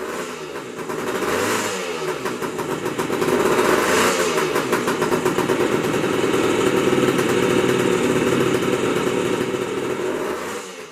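Motorcycle engine running, its pitch rising and falling several times as it is revved; the sound fades in at the start and fades out just before the end.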